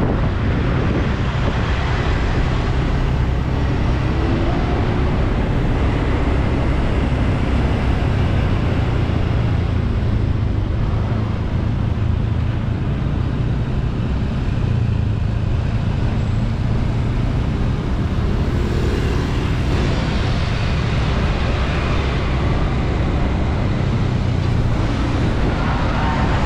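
Steady city road-traffic noise with a constant low rumble, with no single event standing out.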